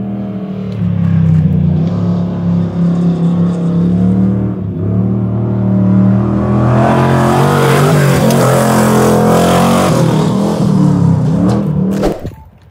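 LS V8 engine of a Pro-2 off-road race truck running hard on a dirt track, its note rising and falling with the throttle. It is loudest as the truck comes close, with a rush of noise over the engine, and stops abruptly near the end.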